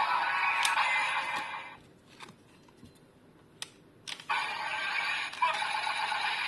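Electronic sound effects from a DX Kamen Rider Legend transformation toy, played through its small built-in speaker. A burst of sound ends at about two seconds in. A few plastic button clicks follow, then another burst of effects starts at about four seconds.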